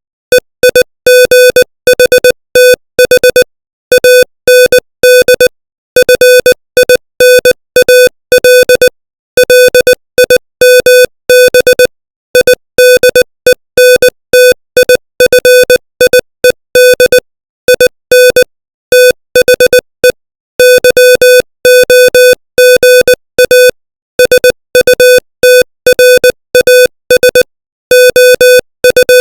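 Morse code sent at 20 words per minute as a keyed beep at one steady pitch. Short dots and longer dashes run in quick groups, with longer pauses between words every few seconds.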